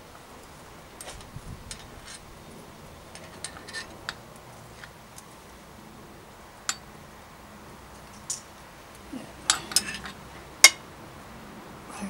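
Scattered metallic clicks and clinks as a bicycle crankset and tools are handled while the cranks are fitted to the bottom bracket, with a quick run of sharper clinks near the end.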